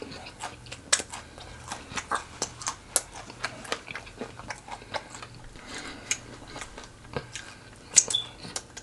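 Close-miked chewing of fried chicken: a run of irregular wet smacks and crackles, two or three a second, with a sharper crack near the end.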